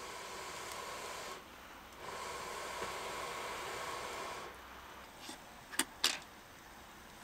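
Meat sizzling in a frying pan on a camp stove, a steady hiss that dips briefly and falls away about four and a half seconds in. Then two sharp clinks of cookware close together as diced potatoes are tipped from a bowl into the pan.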